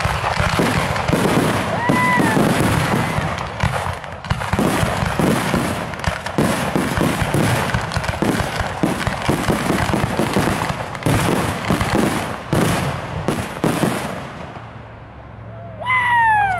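Fireworks barrage: a dense, continuous stream of bangs, pops and crackling from aerial shells and crackling stars. It thins out about fourteen seconds in, and a short falling tone follows near the end.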